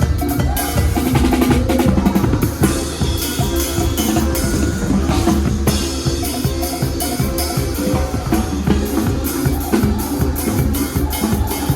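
Live band playing instrumental music: drum kit with bass drum and snare keeping a steady beat over a sustained bass line.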